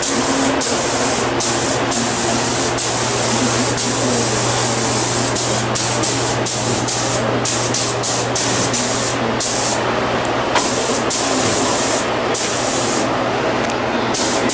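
Compressed air hissing from a hose-fed pneumatic tool, with many brief breaks as the trigger is let off and pressed again, over a steady low hum.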